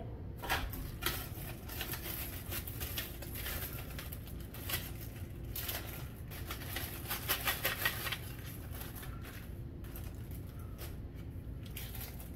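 Plastic packaging crinkling and rustling, with small clicks and knocks, as grill parts are unwrapped and handled. It thins out about eight seconds in, leaving quieter handling noise.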